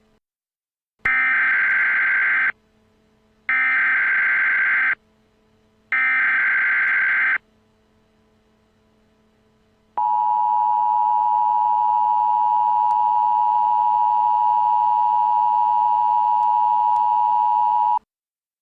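Emergency Alert System activation: three short bursts of SAME header data, about a second and a half each, then the steady two-tone EAS attention signal held for about eight seconds before it cuts off.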